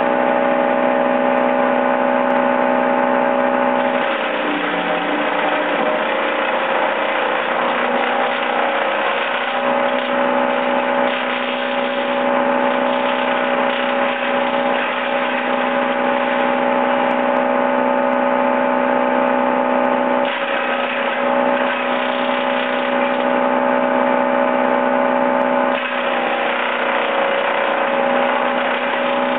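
Wallenstein BXM32 PTO-driven chipper shredder running off a Kubota L3200's three-cylinder diesel, a steady hum broken several times by louder grinding as cedar branches are fed in and chipped, the machine's pitch sagging under each load.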